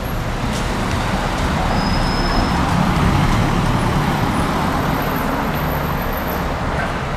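Street traffic noise, swelling as a vehicle passes and loudest about three seconds in.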